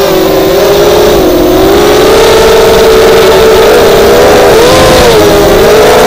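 Racing quadcopter's four Lumenier 2206 2000 kV brushless motors spinning HQProp 5x4.5 bullnose props on a 4S battery: a loud, steady buzzing whine whose pitch dips and rises several times as the throttle changes.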